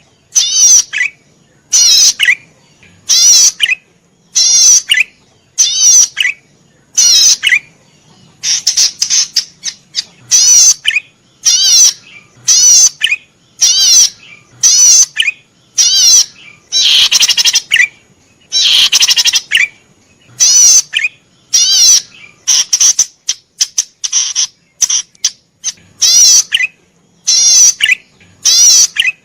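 Cisticola (the 'cici padi merah' songbird) singing loudly in short, rapid zigzag trills, about one phrase a second, with a few longer phrases in between.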